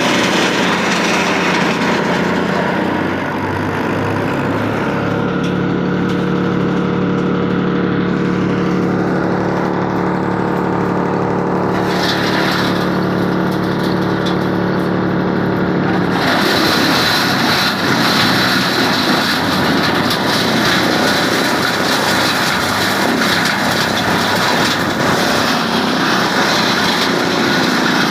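Tractor-driven wood chipper running, with a steady engine hum. About sixteen seconds in, the sound turns abruptly into a harsh, noisy rasp as wood is chipped.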